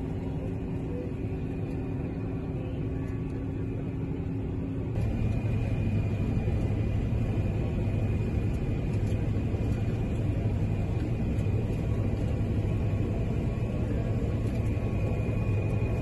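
John Deere combine harvester running steadily while harvesting, heard from inside the cab: a constant engine and machinery drone. About five seconds in the sound changes abruptly and gets louder, with a thin high whine over the drone.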